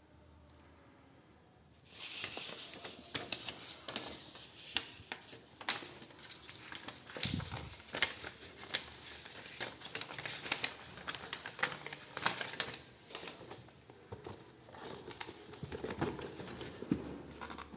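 Packaging and parts being handled: plastic and cardboard crinkling with many sharp clicks and taps, starting about two seconds in, with a low thud about seven seconds in.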